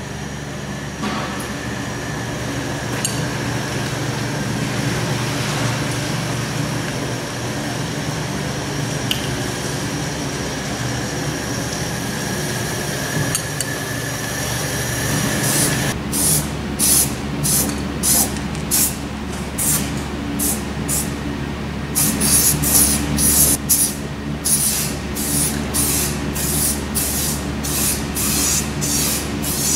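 Truck bed coating being sprayed from an air spray gun. It is a steady hiss with a faint whistle for about the first fifteen seconds, then the whistle stops and a run of short spray bursts follows, about two a second, as the trigger is pulled in short strokes.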